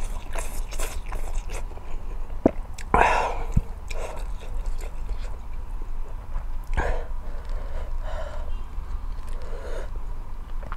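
Close-up eating sounds: chewing and biting into spicy ramen noodles and boiled eggs, with scattered small clicks and a louder mouthful about three seconds in.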